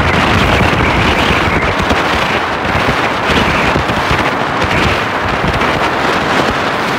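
Wind buffeting the microphone over the steady rush of water and outboard motor of a Blackjack 224 center-console boat running past at speed.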